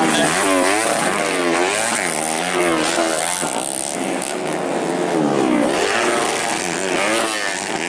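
Underbone race motorcycles on a dirt grasstrack, engines revving hard, their pitch rising and falling again and again as the riders work the throttle and change gear.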